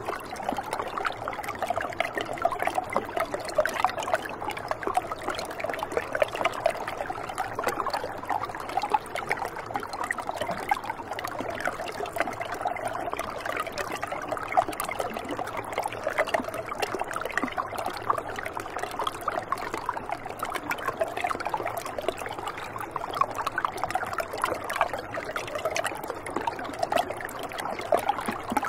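Shallow river water running in a thin sheet over rock: a steady trickle made of many small splashes.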